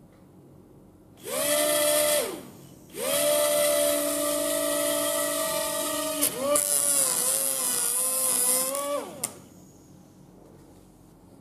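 Two small coreless DC motors with plastic propellers whine as their battery wires are joined, with a rush of propeller air. They spin up about a second in, stop briefly, then run for about six seconds. Midway the pitch wavers and there are a couple of clicks, and near the end they wind down.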